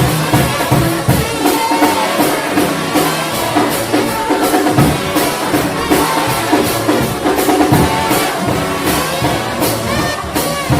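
Trombone shout band playing a fast gospel number: a choir of trombones in full harmony over a steady drum-kit beat.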